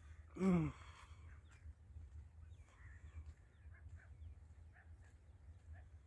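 A man's single short shout, falling in pitch, about half a second in, over a low steady rumble. Faint short chirps follow in the second half.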